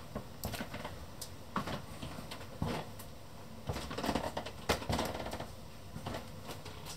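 Slow footsteps on a hard laminate floor, with scattered small taps and clicks spaced about a second apart.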